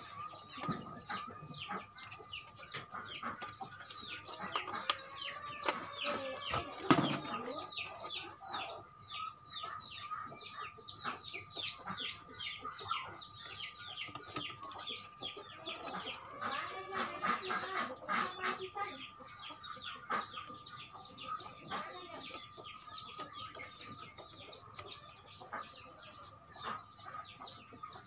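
Chickens calling, a dense run of short high chirps several a second, over a thin steady tone. A single sharp knock about seven seconds in is the loudest sound.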